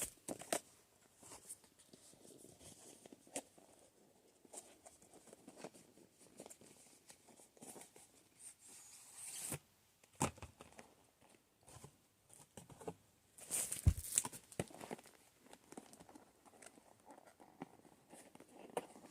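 Packaging being handled and opened: faint rustling and crinkling with scattered small clicks and knocks, and a louder flurry of rustling about two-thirds of the way through.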